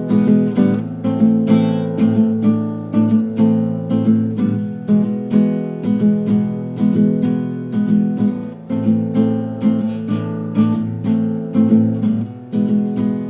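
Background music: acoustic guitar strummed in a steady rhythm, plucked notes over it.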